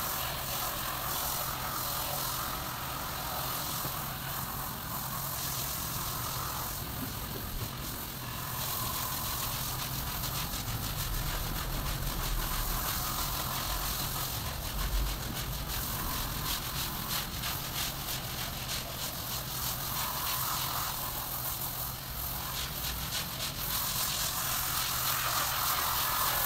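Water from a garden hose spraying and splashing onto a wet carpet and tiled floor, a steady hiss over a low, even hum.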